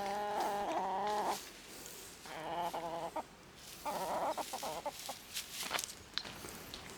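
A chicken clucking: one long wavering call at the start, a shorter call about two seconds in, and a quick run of clucks about four seconds in.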